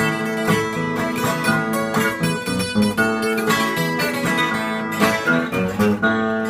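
Two acoustic guitars, a nylon-string guitar and a twelve-string guitar, playing an instrumental passage between verses, with quick picked notes over strumming and no singing.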